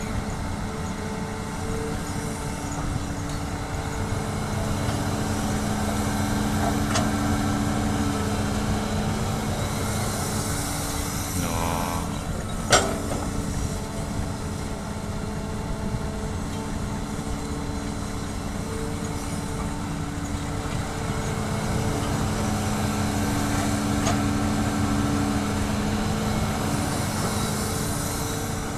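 Hitachi hydraulic excavator's diesel engine running steadily, its note growing louder twice as it works under load. A single sharp knock sounds about halfway through.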